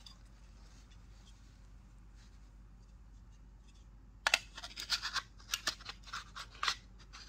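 Faint room tone for about four seconds, then a run of irregular sharp clicks and scrapes as the polymer top half of a Magpul carbine-length drop-in handguard is worked against the lower half and onto the rifle.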